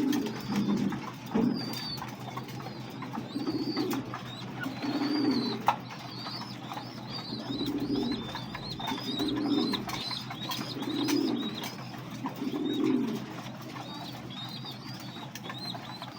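Domestic pigeons cooing: a series of low coos about every second and a half, stopping a few seconds before the end. Faint, high small-bird chirps repeat behind them.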